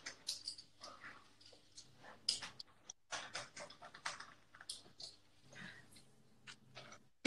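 Crispy flammkuchen crust crackling as it is cut into pieces on a wooden board: a run of faint, irregular clicks and crunches.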